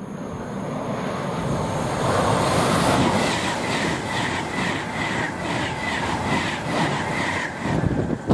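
Train passing at speed: a rushing noise builds over the first two seconds, then a run of regular wheel clicks, about two to three a second, with a thin high whine, dropping away near the end.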